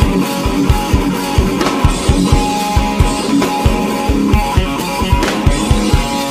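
Rock-style background music with guitar and drums, driven by a steady, fast kick-drum beat.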